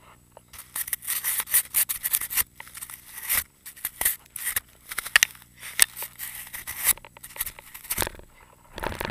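Close-up rubbing and scraping against the camera and its microphone, as fabric or a glove is handled over it, in uneven crackly bursts.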